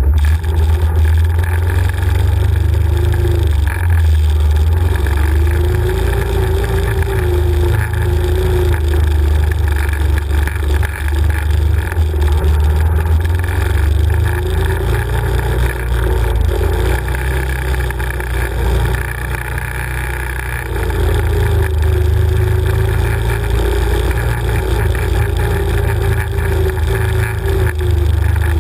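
Can-Am 1000 quad's V-twin engine running as the ATV is ridden over a rough trail, with a deep rumble and an engine note that rises and falls with the throttle. The engine eases off briefly about twenty seconds in, then picks up again.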